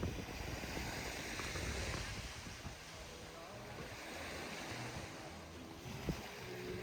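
Gulf of Mexico surf washing onto a sandy beach, swelling and easing twice, with wind rumbling on the microphone.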